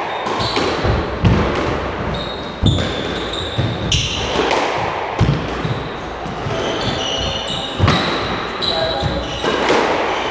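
Squash rally: a rubber squash ball smacks off the rackets and walls every second or so, ringing in the enclosed court, while trainers squeak sharply on the wooden floor.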